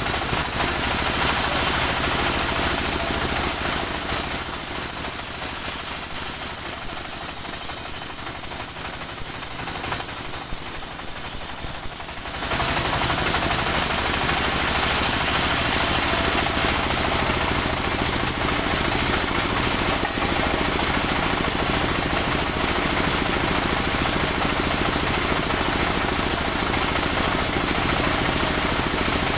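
Engine-driven band sawmill running, its blade cutting a saman (rain tree) log, with a steady high hiss over the engine. About twelve seconds in the sound becomes louder and fuller.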